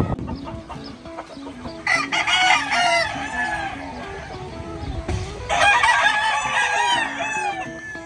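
Gamecocks crowing twice: a crow about two seconds in and a longer one about five and a half seconds in, each rising, held, then falling away.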